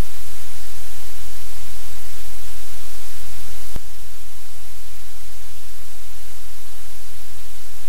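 Loud, steady static hiss with a low electrical hum from the webcam's audio feed, broken by a single sharp click a little under four seconds in, after which the hiss drops slightly.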